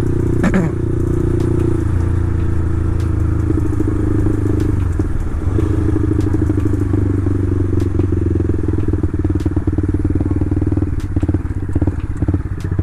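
Motorcycle engine running steadily while under way, heard through its aftermarket exhaust (knalpot), its note shifting slightly a few times.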